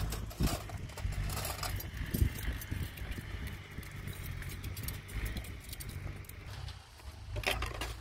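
Engine running steadily, with irregular knocks and clacks over it.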